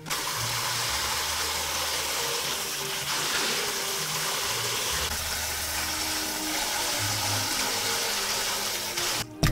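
Tap water running steadily into a glass bowl of raw chicken pieces in a stainless-steel sink, splashing over hands rinsing the chicken. It cuts off abruptly near the end.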